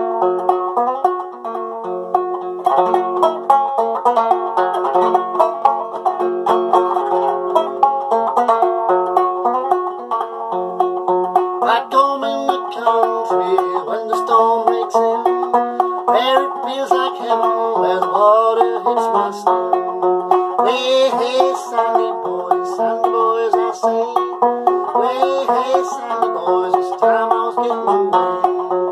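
Banjo played solo: a steady, rhythmic tune of bright plucked notes.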